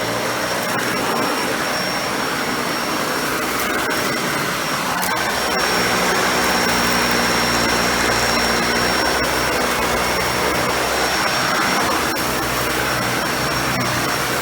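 Dyson Ball Animal 2 upright vacuum running on an area rug: a steady motor noise with a thin high whine over it. It gets a little louder for several seconds in the middle.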